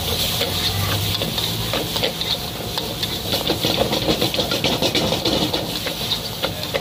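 Food sizzling as it fries at a street-food stall, with a run of quick clicks and clatter from stirring about halfway through.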